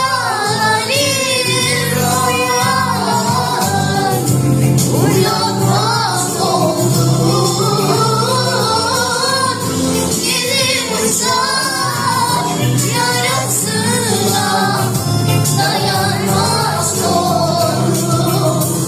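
A singer with a powerful voice sings a melody, sliding between and holding notes, over backing music with a steady low beat.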